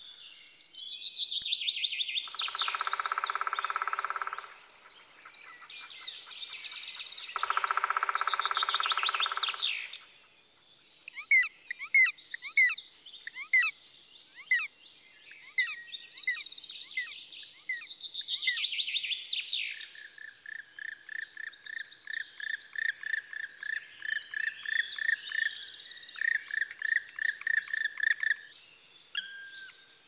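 Several small songbirds singing together: overlapping high, falling trills and chirps, with two longer, lower buzzing notes in the first third and a run of quick, even chirps in the second half.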